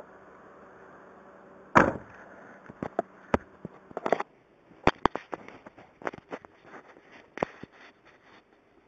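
A low steady hum cuts off with one loud sharp bang about two seconds in, followed by a string of irregular sharp pops and clicks, some in quick clusters, fading out near the end.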